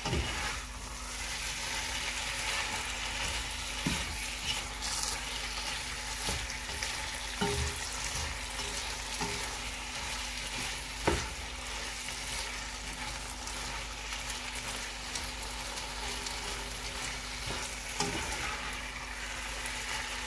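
Pasta in tomato sauce sizzling in a pot as it is stirred and tossed with a spatula: a steady frying hiss with a few sharp knocks of the spatula against the pot, the loudest about halfway through.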